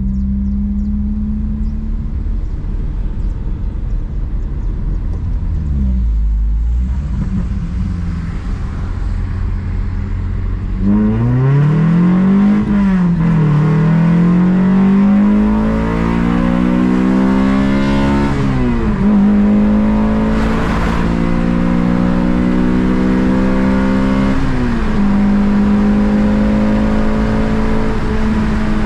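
Honda Civic Si engine running at a steady low note, then revving hard from about halfway through. The pitch climbs, falls at an upshift, climbs again and falls at a second shift, then settles into a steady cruise.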